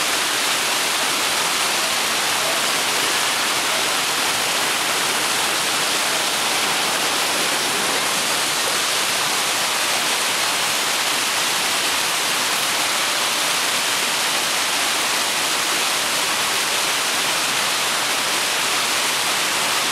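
Mountain stream cascading in whitewater over rocks, a loud, steady rush of water.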